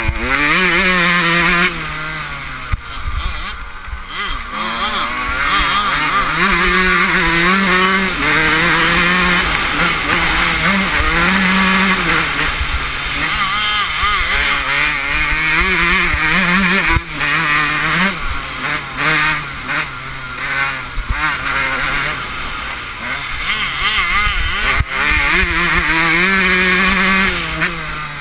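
125cc two-stroke motocross bike engine heard from on board, revving hard and backing off again and again as the rider runs the dirt track, the pitch climbing and dropping every couple of seconds.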